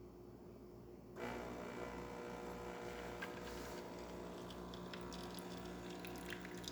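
DeLonghi Specialita espresso machine's pump starts about a second in and runs steadily as it pulls a shot of espresso.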